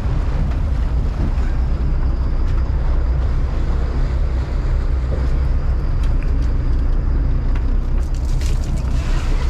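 Sport-fishing boat's engine running steadily under way, a loud low rumble, with wind buffeting the microphone.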